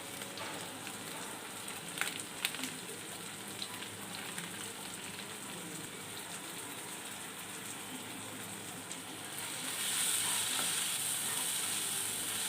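Food frying in oil in a pan, a steady sizzle, with a few sharp clicks of a spoon against the pan about two seconds in. The sizzle grows louder about ten seconds in.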